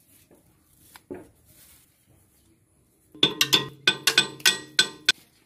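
Steel bar knocking against a tractor rotavator's rotor shaft and blades: about a dozen quick metallic clanks with ringing, starting about three seconds in and lasting about two seconds.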